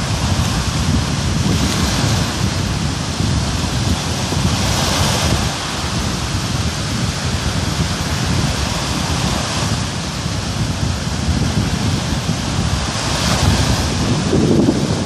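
Wind buffeting the microphone over the steady wash of surf, with slow swells of hiss every few seconds.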